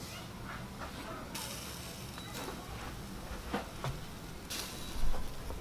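Mutton chops and chicken tikka sizzling on skewers over a wood fire, a steady hiss with scattered crackles and pops. A brief low rumble comes near the end.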